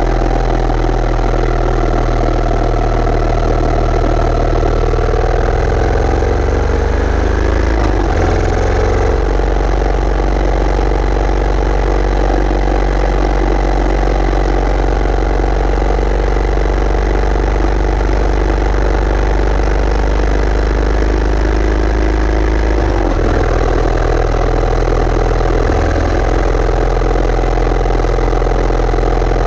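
Yamaha SR400's air-cooled single-cylinder four-stroke engine running while the bike is ridden. The engine note climbs for a few seconds, changes suddenly about eight seconds in, and shifts again about 23 seconds in.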